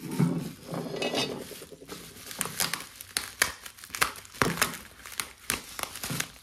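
Clear plastic wrapping crinkling and crackling in irregular bursts as a wrapped piece of china is handled and cut open with scissors.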